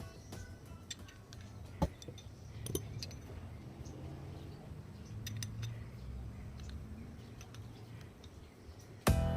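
Small metallic clicks and taps of an adjustable wrench and the metal parts of a Shimano Deore XT clipless pedal being handled while the pedal's axle unit is unscrewed from its body, with one sharper knock about two seconds in.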